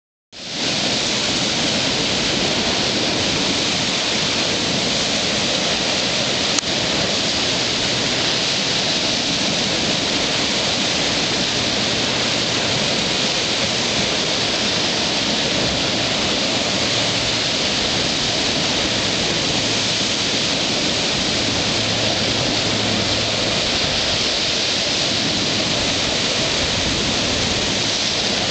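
Sea surf churning and breaking against a rocky shore: a steady, unbroken rush of white water. A single brief click about six and a half seconds in.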